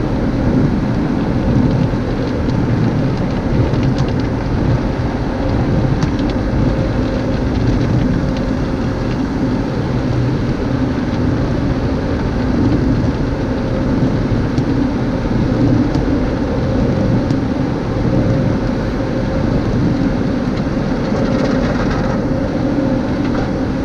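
MacNeil tunnel car wash heard from inside the car: a steady wash of water spray with rotating cloth brushes slapping against the car body. Near the end, the hanging cloth strips of an overhead curtain sweep over the car.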